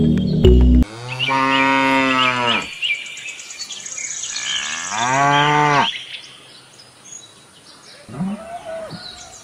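Cattle mooing: two long, drawn-out moos a few seconds apart, then a shorter, higher call near the end. Background music cuts off just under a second in, and faint birdsong chirps run behind.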